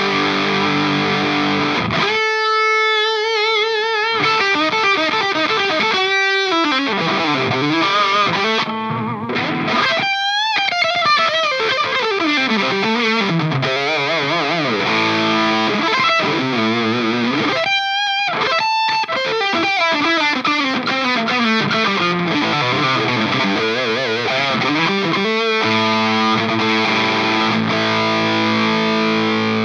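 Electric guitar with overdriven, Marshall-style crunch from a Nux Plexi Crunch pedal, played through an amp and 2x12 cabinet. It opens with chords, then moves into a lead line with held notes shaken by wide vibrato, fast runs and bends, and returns to chords near the end.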